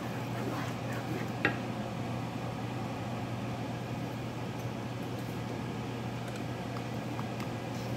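Thick masala gravy cooking in a stainless steel pan over a steady low hum, with a few faint ticks. A wooden spatula stirs it and knocks once against the pan about a second and a half in.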